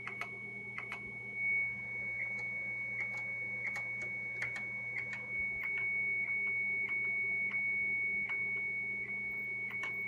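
Star Prentice 103-232 acoustic coupler modem sounding a steady high tone in self-test, hearing its own tone back in loopback. Faint irregular clicks and a low hum sit under the tone.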